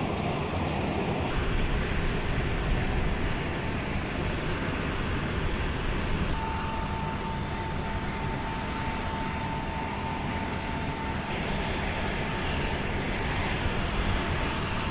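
Turbofan engines of a large military jet transport running on the ground: a steady rumble and hiss, with a thin, steady high whine from about six seconds in to about eleven seconds.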